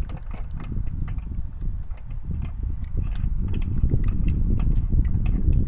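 A run of quick plastic clicks as a RotopaX mount handle is screwed into a container, over a low rumble.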